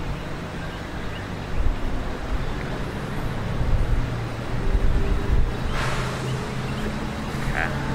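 Steady low rumble of road and engine noise inside a moving car, with a brief rustle about six seconds in.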